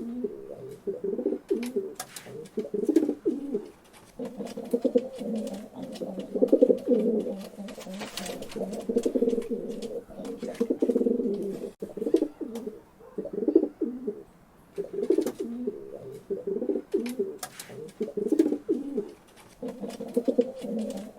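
Several pigeons cooing, their low throaty calls overlapping almost without pause, with scattered sharp clicks among them.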